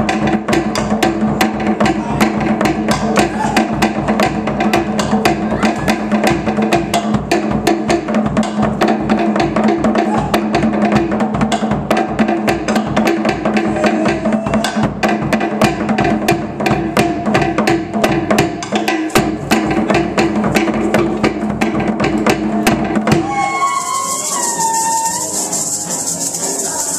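Fast Polynesian drum music: a rapid, steady wooden knocking over a deeper drum, as used for Tahitian dancing. Near the end the drumming stops and a quieter piece begins.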